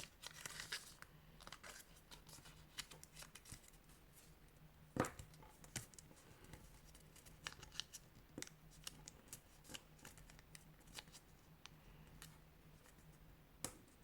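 Colored origami paper being handled and folded: faint, scattered crinkles and creasing sounds, with one louder paper snap about five seconds in.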